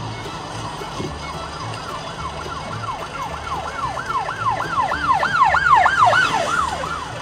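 An emergency-vehicle siren in fast rising-and-falling yelps, about three a second, growing louder to a peak and then fading.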